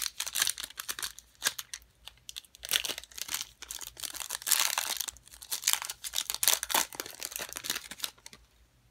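Foil wrapper of a 2013 Prizm football card pack crinkling and tearing as it is worked open by hand, in uneven spells of crackling that stop about eight seconds in.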